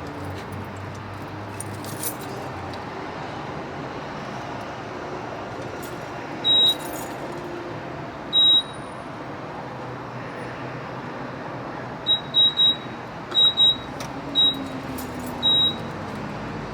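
Gas pump keypad beeping as its buttons are pressed: about nine short, high, identical beeps at uneven intervals, two spaced apart and then a quick run of them near the end. The beeps sit over a steady background of outdoor traffic hum.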